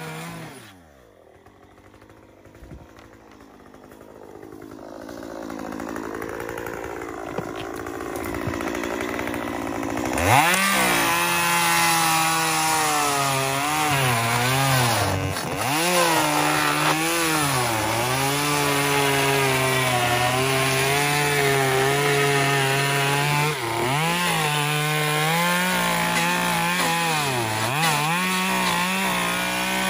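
Stihl top-handle chainsaw: its engine pitch falls away right at the start, then a quieter stretch follows. About ten seconds in it revs up sharply and runs hard, cutting into the hot tub's rim and wooden skirt. Its pitch sags and recovers several times as the chain bogs down in the cut.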